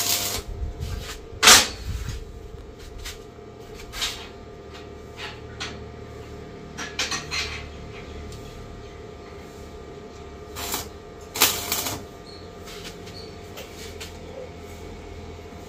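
Stick (arc) welding on a steel grille frame: several short bursts of arc crackle as tack welds are struck, separated by quieter stretches.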